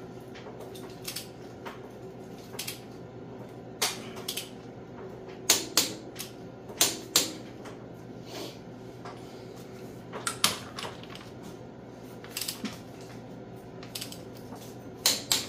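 Torque wrench ratcheting in short runs and giving sharp metallic clicks as cylinder head bolts are tightened down in sequence. Several loud single clicks stand out around the middle of the stretch.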